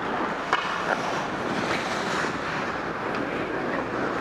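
Steady rushing of air over the microphone of a camera carried by a moving ice skater, with the scrape of skate blades on the ice and a few faint clicks.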